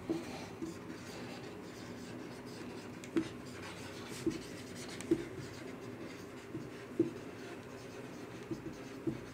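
Marker pen writing on a whiteboard: soft strokes, with several short, sharper taps at irregular intervals as letters are formed.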